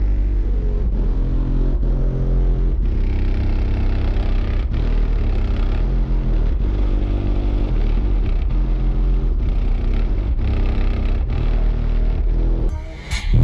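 Deep bass music from a car audio system with three 18-inch Sundown U subwoofers, heard from outside the SUV beside its body, with a steady beat a little under once a second. The sound drops out briefly near the end.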